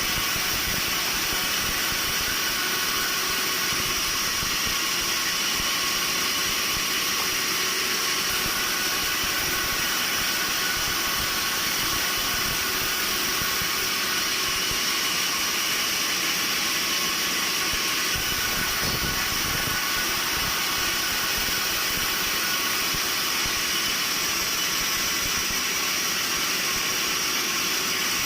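Sawmill machinery running steadily: a constant hiss with a steady high-pitched whine. It holds even throughout, with no separate cuts or knocks.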